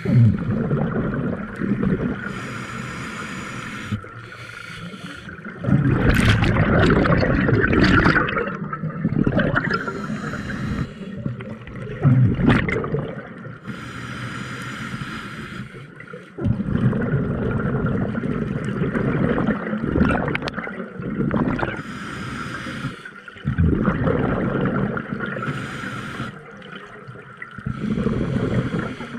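Scuba diver breathing underwater through a regulator: a hissing inhale, then a longer rush of bubbling exhaust, repeated over several breaths.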